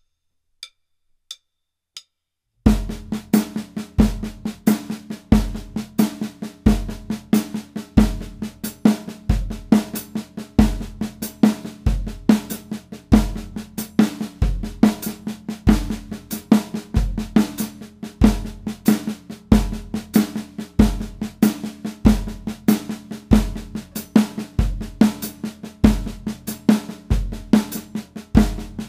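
Three short stick clicks counting in, then a drum kit played continuously: a dense stream of snare-drum strokes with accents, over a steady bass drum pulse. The hands run an exercise of single strokes, then eighth-note triplets accented on every second right hand, then paradiddles placed on those accents.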